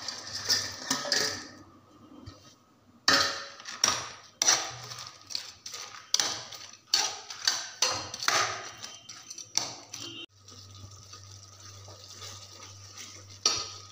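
Fried cauliflower pakoras tipped off a steel plate into thick sauce in a steel kadai, then a metal spoon stirring and scraping against the pan in quick clinks and scrapes for several seconds. The stirring stops about ten seconds in, leaving a steady low hum.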